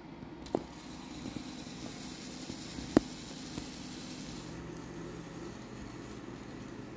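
A few small clicks of a Z scale toy locomotive being knocked about by a cat's paw on its track, the loudest a single sharp click about three seconds in, over a faint steady hum.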